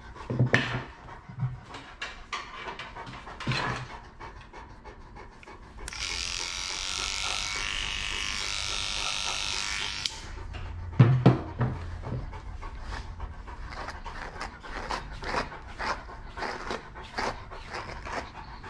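Newfoundland dog panting steadily in quick, even breaths. A few low thumps land near the start and about eleven seconds in, and a steady hiss runs for about four seconds in the middle.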